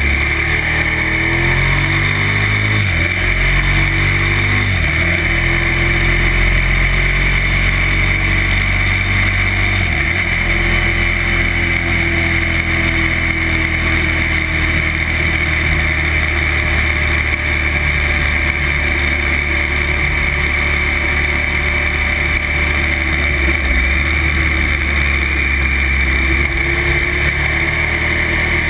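Motorcycle engine accelerating hard through the gears, its pitch climbing and dropping sharply at upshifts about 3, 5 and 10 seconds in, then running at steady road speed with the engine note easing off near the end. A steady rush of wind lies under it.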